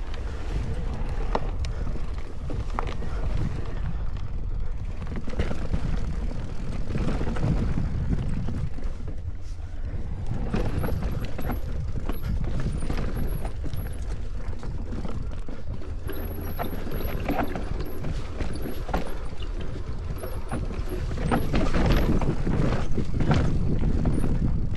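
Electric mountain bike descending a rough dirt trail: a steady low rumble of tyres and wind, with the chain and frame rattling and clattering over roots and rocks. The knocks get louder and busier near the end.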